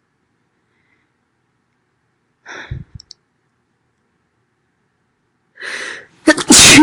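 A woman sneezing: a short breath about two and a half seconds in, another intake of breath about three seconds later, then one very loud, explosive sneeze near the end.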